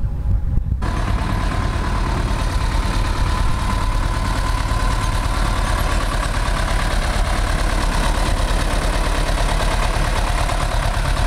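Small Centauro farm tractor's engine running as it drives slowly past close by, a steady mechanical clatter with a thin steady whine over it. It cuts in suddenly about a second in, after a brief low wind rumble.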